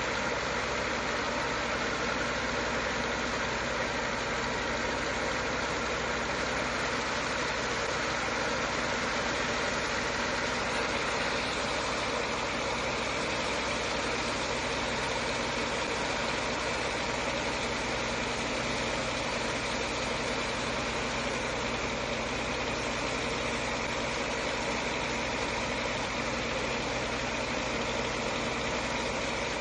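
Engine of a sand-unloading pump running at a steady drone, with the rush of a water jet washing sand into slurry in a barge hold.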